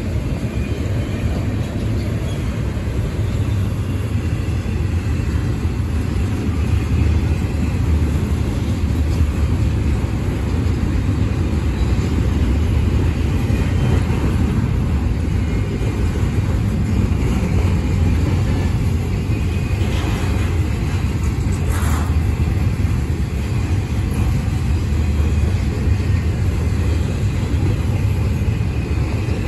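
Intermodal freight cars rolling past at close range: a steady, loud rumble of steel wheels on rail, with a couple of brief sharper clanks about two-thirds of the way through.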